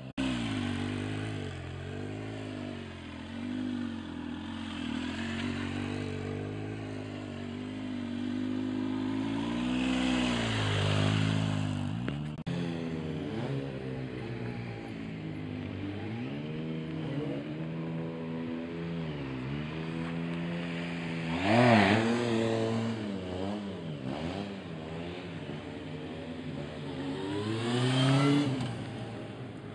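Sport motorcycle engine revving up and down over and over during stunt riding, its pitch rising and falling with the throttle. It gets loudest as the bike passes close, about two-thirds of the way through and again near the end.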